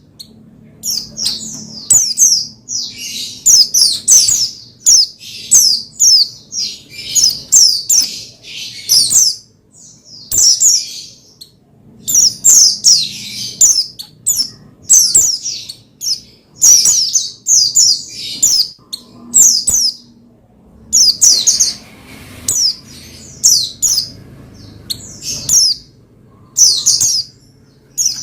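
White-eye (pleci) singing in an excited run of short, high-pitched chirping phrases, about one or two a second, with a brief lull about ten seconds in.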